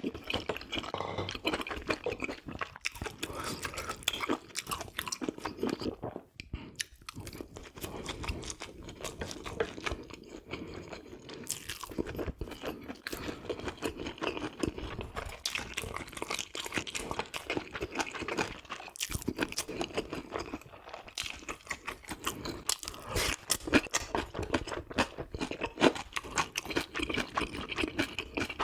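Close-miked chewing of offal (gopchang and pork innards), a dense, continuous stream of wet, crunchy bites and mouth clicks.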